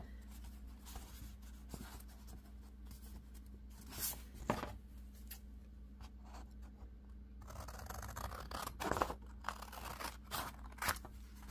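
Large scissors cutting through brown paper journal pages: a series of snips and paper rustling, busiest over the last few seconds.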